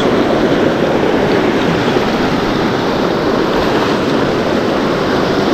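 Steady rush of river water, an even continuous noise with no breaks.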